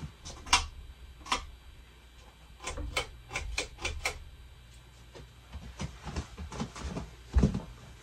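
A run of irregular sharp clicks and light knocks, bunched together in the middle, with a low thump near the end.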